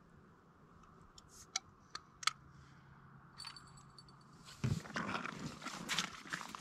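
A few light clicks over a quiet background. Then, from about two-thirds in, a close, dense crunching and crackling of footsteps on wet, melting ice and slush.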